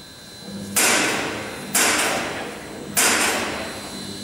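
Heavy hammer blows on metal: three sharp, ringing strikes about a second apart, each dying away slowly in the echoing workshop, with a fourth landing at the very end.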